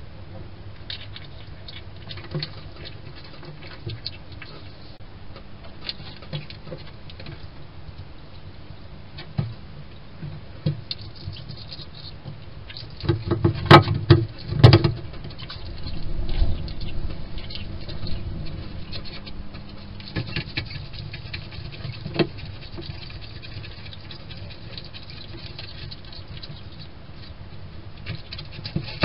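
A hedgehog moving about inside a wooden feeding box: scratching, scuffing and pattering of its feet and spines against the wooden floor and walls. A cluster of loud knocks comes about halfway through.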